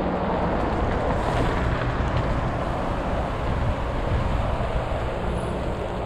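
Wind noise on the microphone and tyre rumble from a mountain bike rolling across grass.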